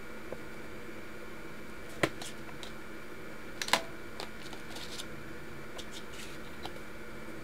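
Sharp clicks and light taps of coloured pencils being put down and picked up during a colour change. Two louder clacks come about two seconds and three and a half seconds in, then several faint ticks, over a steady hiss and hum.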